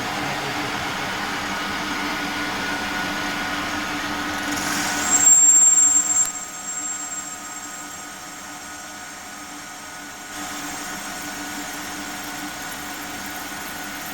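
CNC lathe running, with a steady machine hum. About five seconds in there is a brief loud, high-pitched whine, then the sound drops abruptly and steps back up a little later.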